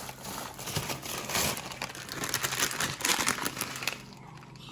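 Plastic food packaging crinkling and rustling as groceries are handled, with irregular crackles that die down near the end.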